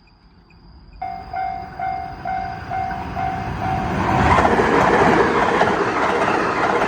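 Japanese level-crossing alarm ringing, a repeated electronic tone about twice a second, starting about a second in. From about four seconds in, a train passes over the crossing and its loud rolling rumble rises and covers the bell.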